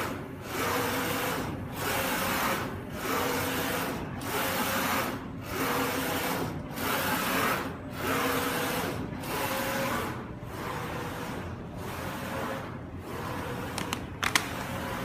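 UV flatbed printer's print-head carriage sweeping back and forth over acrylic sheets. It makes a whirring pass about every 1.2 seconds, with a short break at each turn-round, and the passes get quieter after about ten seconds. A few sharp clicks come near the end.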